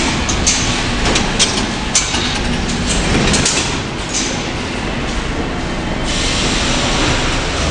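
New York City subway L train running through the station: a loud steady rush of rail noise, with a few sharp clanks in the first two seconds.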